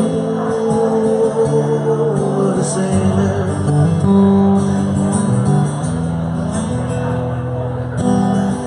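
Live band music: an instrumental passage with strummed acoustic guitar and held notes, no sung words.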